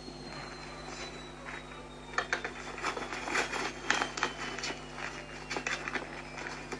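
A burst of quick, irregular sharp taps and knocks, starting about two seconds in and lasting some four seconds, over a faint steady hum.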